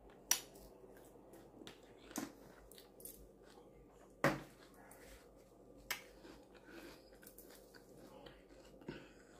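Faint, scattered soft clicks and ticks over quiet room tone, with louder single clicks a third of a second in, near two seconds, just past four, near six and near nine seconds.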